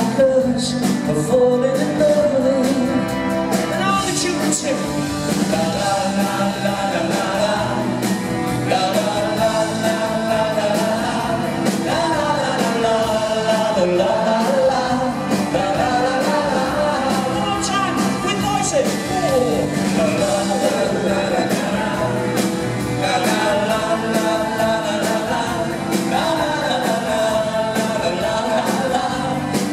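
Live pop-rock band playing with electric guitars and sung melody, heard from the audience in a large hall.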